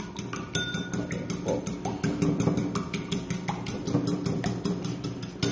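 An egg being beaten with a metal spoon in a ceramic bowl: quick, even clinks of the spoon against the bowl, several a second.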